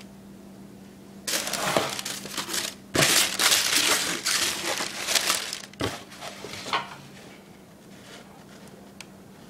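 Packing paper in a cardboard shoebox being crinkled and crumpled by hand, starting about a second in and dying away after about seven seconds, with two knocks against the box along the way.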